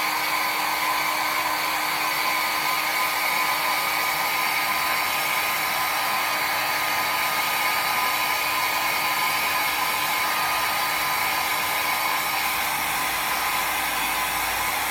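Handheld hair dryer running steadily on the adhesive spray just applied to the wig cap, a constant blowing rush with a steady motor whine.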